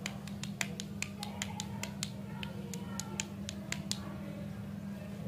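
Light, irregular clicks and taps, several a second, from fingers handling lollipops on plastic sticks, thinning out near the end, over a steady low hum.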